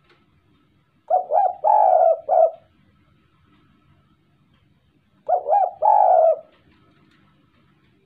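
Spotted dove cooing in courtship. Two phrases of a few coos each, the first about a second in and the second about five seconds in.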